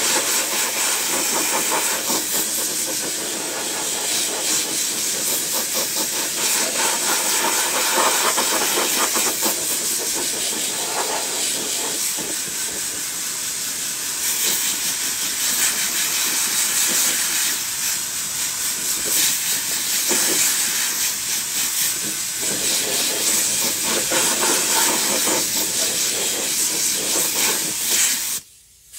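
Gravity-feed air spray gun hissing steadily as it sprays DAP Weldwood contact adhesive, then cutting off suddenly near the end as the trigger is released.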